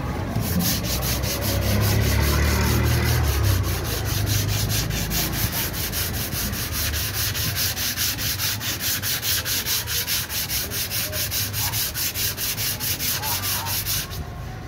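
Sandpaper on a hand block dry-sanding body filler on a car door, in quick, even back-and-forth strokes of about four a second that stop near the end. A low rumble sits under the first few seconds.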